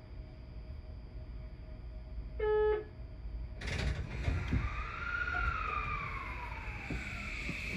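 A subway train's cab: a brief electronic beep, then a short hiss, then the inverter-driven traction motors start up with a whine that glides up and down as the train pulls away from a stop.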